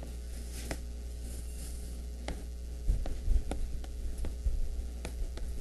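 Steady low electrical hum, with scattered faint clicks at irregular intervals and a few soft low thumps a little after the middle.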